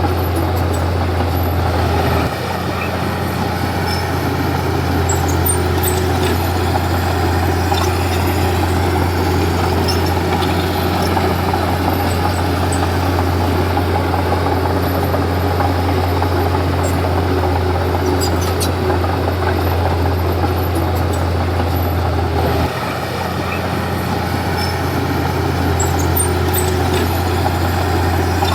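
Komatsu D31P bulldozer's diesel engine running steadily under working load, a continuous low drone. The engine note drops slightly about two seconds in, and again about twenty-three seconds in before picking back up a couple of seconds later.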